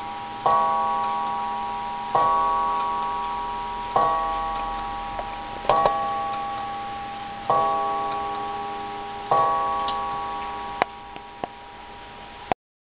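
Antique French Samuel Marti clock movement striking the hour: six slow strokes on the same ringing note, each about two seconds apart and left to fade. A few sharp clicks from the movement follow near the end.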